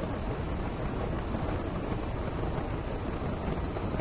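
Steady wind rush over the microphone of a camera riding on a Juiced Scorpion X e-bike moving at speed on a road, a low, even rushing noise.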